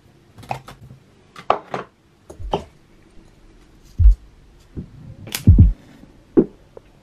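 Light clicks and taps of a glass jar of matchsticks and a candle jar being handled, then a match struck about five seconds in. A few dull thumps are the loudest sounds, about four seconds and five and a half seconds in.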